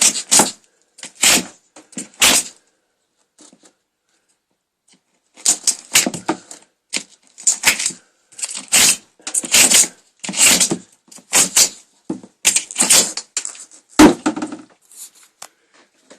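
A chisel scraping and prying old wall board off a timber frame in a series of short, irregular strokes, with a pause of a few seconds early on and a sharp crack near the end.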